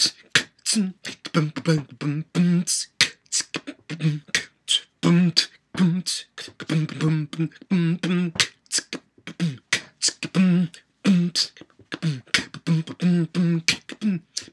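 A man beatboxing: a quick run of sharp mouth clicks and hissed hits mixed with short hummed low notes.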